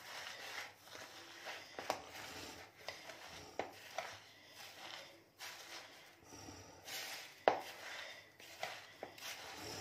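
Grated raw papaya and sugar being mixed by hand in a plastic bowl: faint, irregular wet rustling and gritty crunching, with small knocks against the bowl, the sharpest about three-quarters of the way through.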